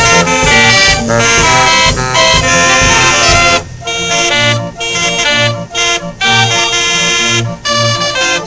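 North Tonawanda Military Band Organ playing a lively tune, its brass trumpet pipes carrying the melody over a regular bass beat, with drum strokes in the first few seconds.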